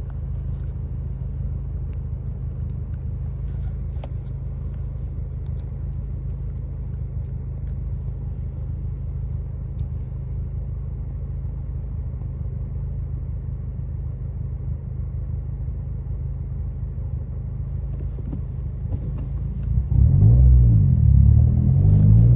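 Subaru WRX's turbocharged flat-four engine running steadily at low revs. About twenty seconds in it gets clearly louder, its pitch climbing and dipping as the car accelerates.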